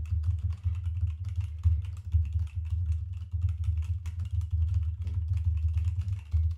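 Fast, continuous typing on a computer keyboard: a dense stream of key clicks over a strong low rumble.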